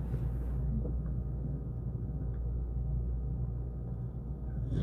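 Steady low rumble with a faint hiss of room background noise.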